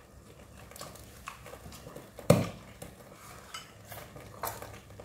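Chopsticks clicking and tapping against small rice bowls and an aluminium cooking pot during a meal, a few scattered clicks a second, with one louder knock a little past two seconds in.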